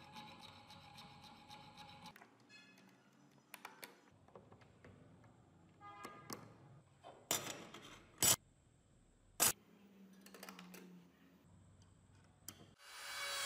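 Steady metal rubbing for about two seconds, then small sharp metallic clicks and clacks as the parts of an antique lock are handled and fitted, with three loud clicks in the middle. Near the end a small rotary tool starts up with a rising whine.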